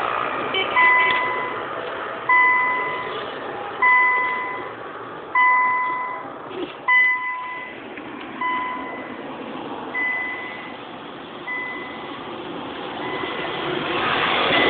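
Electronic warning beeps from a car, one steady single-pitch beep about every second and a half, the later ones fainter.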